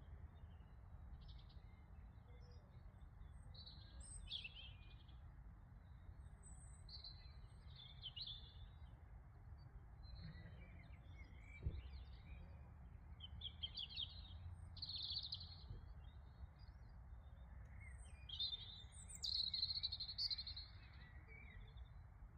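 Small birds chirping in short twittering bursts every second or two, loudest near the end, over a faint low rumble of outdoor background noise.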